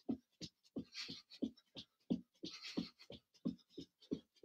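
Footfalls of a person running on the spot with high knees: a steady rhythm of soft thuds, about three a second.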